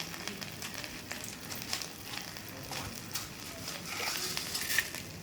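Ginger frying in hot oil in a pan: a steady sizzle with scattered fine crackles and pops.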